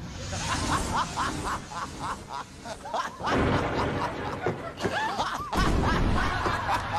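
Laughter: one person laughing in quick, evenly repeated 'ha' sounds, then louder, overlapping laughter from several people from about three seconds in.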